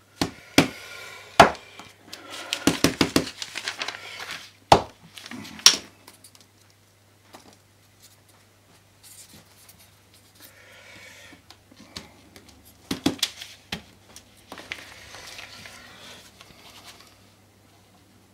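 Paper prints and small tools being handled on a work table: a run of sharp knocks and clicks in the first six seconds and again about 13 seconds in, with softer rustling and scraping of paper between them.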